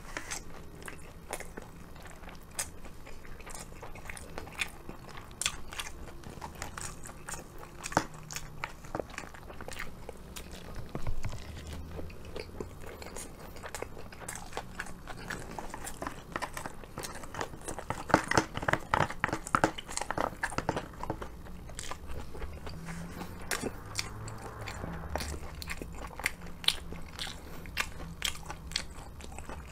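Close-up chewing and crunching of crispy fried chicken karaage, with many sharp crunches and wet mouth clicks. The crunching gets denser and louder for a few seconds about two-thirds of the way through.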